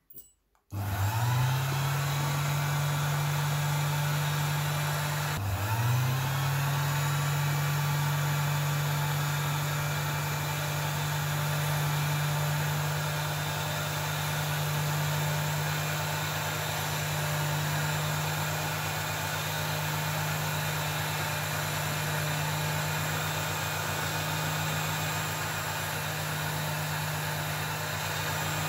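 Small metal lathe's motor starting with a rising whine, cutting out briefly about five seconds in and spinning up again, then running steadily as the drill bit in its chuck bores the eyelet hole in a cello bow frog.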